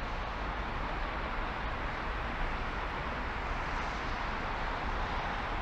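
Steady road and wind noise of a moving car: an even hiss with a low rumble underneath.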